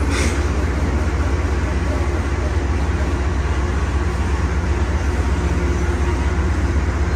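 Diesel locomotive engine running steadily, a deep drone with a constant hum, with a short hiss just after the start.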